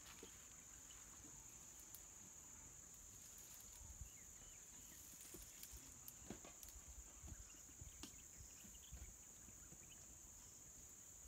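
Near silence in scrubland: insects droning steadily at a high pitch, with a few faint clicks and rustles.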